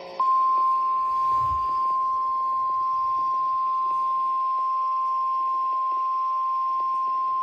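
NOAA Weather Radio warning alarm tone: one steady, unwavering single-pitch tone that begins just after the start and holds at full loudness. It is the alert that announces a warning-level message, here the tornado warning read out next.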